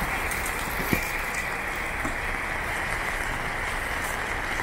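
Steady rain falling on wet paving, an even hiss of drops, with one brief knock about a second in.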